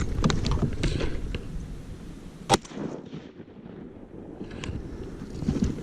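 A single shotgun shot about two and a half seconds in, fired at a wounded drake mallard on the water. Before it, rustling and small knocks of handling in the blind.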